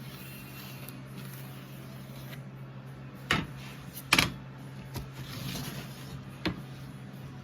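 A few sharp knocks and clacks, roughly a second apart, the second the loudest, over a steady low hum.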